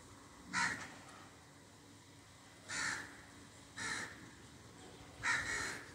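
A crow cawing: four short, harsh calls at uneven intervals.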